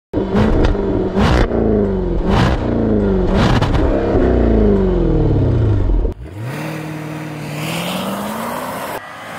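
Jaguar F-Type P450's 5.0-litre supercharged V8 revved hard several times through its active exhaust, each blip falling away with sharp crackles and pops. About six seconds in it cuts to a quieter run of the car accelerating away, the engine note climbing and then dropping at a gear change.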